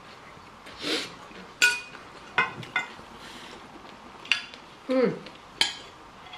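Dishes and tableware clinking and knocking during a meal: about six sharp clinks, some with a short ringing tone, the loudest about one and a half seconds in.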